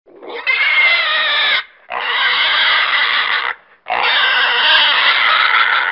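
Pig squealing: three long, loud, high-pitched squeals in a row, separated by short breaks.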